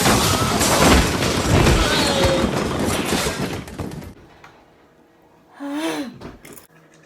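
A loud burst of noise with knocks in it, lasting about four and a half seconds and cutting off suddenly, followed a second and a half later by a short vocal sound.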